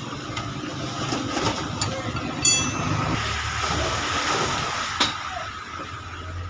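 Traffic passing on a wet road, with motorcycle engines and tyres hissing through water. An SUV splashes through a water-filled pothole about halfway through. There is a brief high squeal about two and a half seconds in, and a sharp knock about five seconds in.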